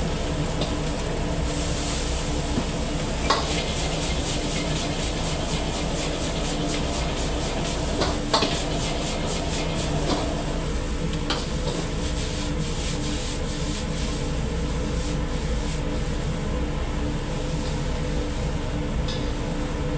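Fried rice sizzling in a wok over the steady rush of a gas burner, with a metal ladle scraping and tossing it in quick, regular strokes and knocking sharply against the wok a few times.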